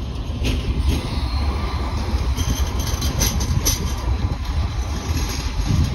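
Electric light rail tram passing close by: a steady rumble of its wheels on the rails, with a few short sharp clicks and squeaks about half a second in and again from about two and a half to four seconds in.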